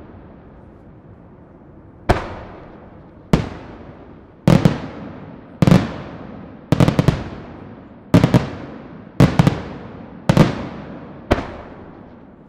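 Aerial firework shells bursting: after about two seconds, sharp bangs come roughly once a second, some in quick doubles and triples, each trailing off in a long echoing rumble.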